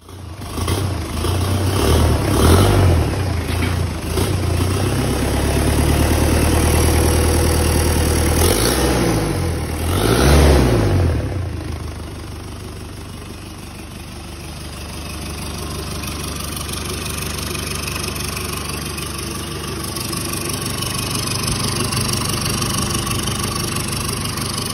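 Ford Ranger 2.5 WLAT four-cylinder turbo-diesel engine running on a test stand. It is revved by hand at the throttle linkage a few times in the first half, then settles to a steady idle.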